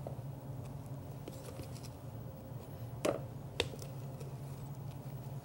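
Cake batter being scraped from a mixing bowl into a bundt pan: quiet soft scraping over a low steady hum, with two faint taps of the utensil a little past halfway.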